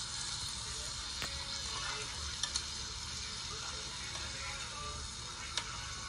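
Marinated beef sizzling steadily on a Korean barbecue tabletop grill, with a few sharp clicks of metal tongs against the grill grate as the meat is turned.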